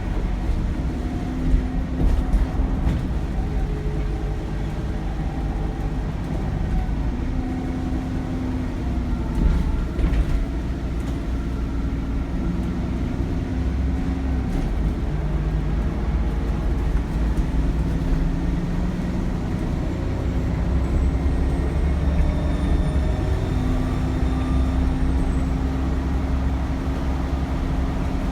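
Cummins ISBe diesel engine of an Alexander Dennis Enviro400 double-decker bus heard from on board while driving. There is a steady low rumble, and the engine note shifts up and down in steps, with a few knocks and rattles. About two-thirds of the way in, a faint high turbocharger whistle rises, holds and falls away.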